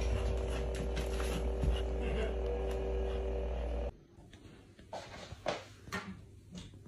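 Replica lightsaber humming steadily with a low drone and a few steady tones, cutting off abruptly about four seconds in. A quiet room follows, with a few soft, sharp taps.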